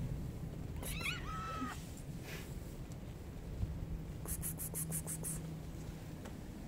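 A long-haired tabby-and-white stray cat meows once about a second in, a short call under a second long. A quick run of about seven scratchy rustles follows a little past the middle.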